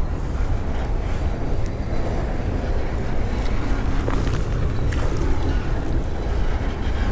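Steady low rumble of a passing train, with wind buffeting the microphone.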